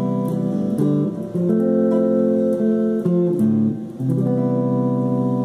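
Solo guitar playing the closing chords of the song, each chord strummed and left to ring, with a final chord struck about four seconds in and left to sustain.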